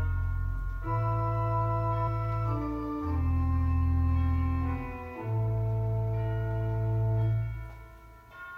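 Slow organ music: held chords over a deep bass, the chord changing every two seconds or so, dying away near the end.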